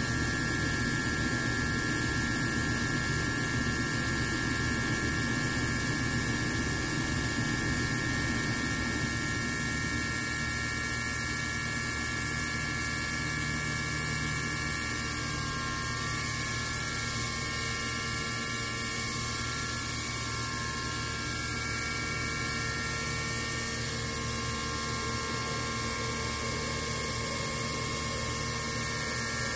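Hyundai Wia F400 CNC vertical machining center running a machining program: the spindle and drives give a steady whine of several tones over a hum, the tones shifting slightly a couple of times midway.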